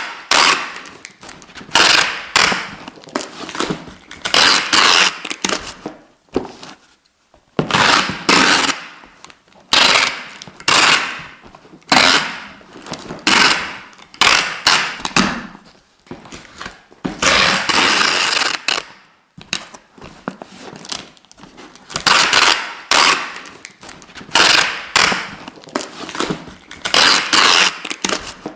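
Adhesive tape being pulled off the roll in a series of quick noisy rips, one every second or two, with one longer pull about two-thirds of the way through.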